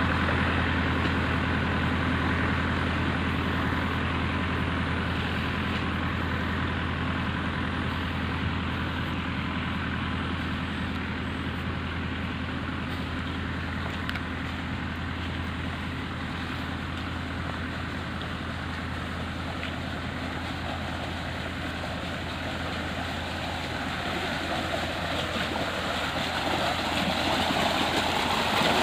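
An engine runs steadily with a low hum. Near the end, rushing water in a concrete irrigation channel grows louder.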